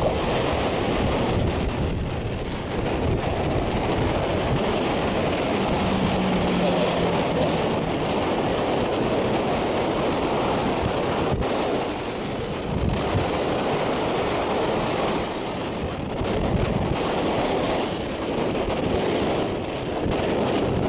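Wind buffeting the microphone: a steady rushing noise, with a brief low hum about six seconds in.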